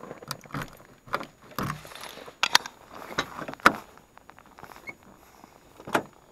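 A gloved hand sweeping and knocking packed snow off a pickup truck's driver door and window: a series of scraping swipes and sharp knocks, the loudest about two and a half and three and a half seconds in. Another sharp click comes about six seconds in, as the driver's door is opened.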